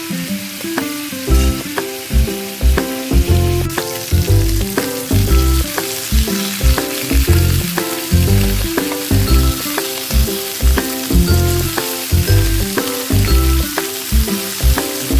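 Pork rib pieces sizzling as they sear in a nonstick frying pan and are turned with a spatula. Background music with held notes and a pulsing bass beat plays over the sizzle.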